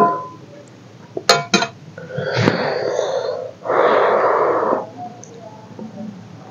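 Two quick metallic clicks, like a steel spoon set down against a steel pot, then two loud breathy mouth sounds of about a second each from a person eating by hand.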